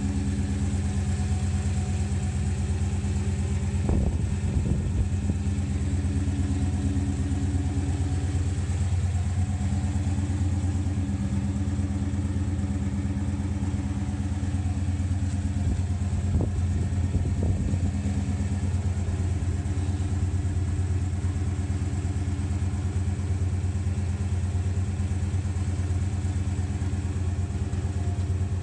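A 454 big-block V8 in a 1972 El Camino SS idling steadily, with a few short knocks about four seconds in and again around sixteen to seventeen seconds.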